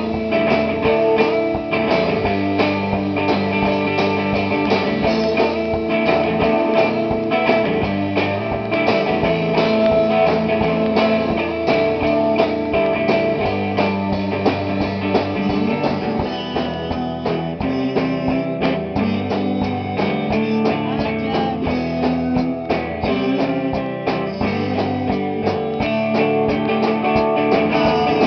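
Rock band playing through a song in rehearsal: strummed guitar over bass and drums.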